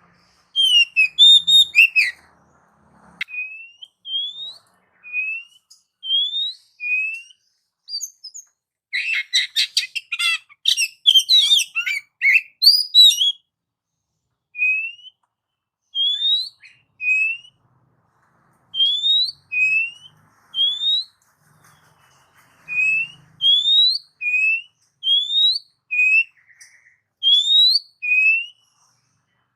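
A songbird whistling short, clear rising notes about once a second, broken about nine seconds in by a burst of rapid, varied chattering song lasting several seconds.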